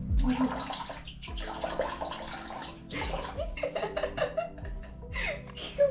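Water splashing as a face is rinsed with the hands, in three bursts over about three seconds, then a woman laughing near the end.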